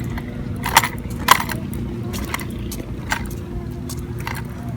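Wind rumbling on the microphone, with a few scattered sharp clicks over it.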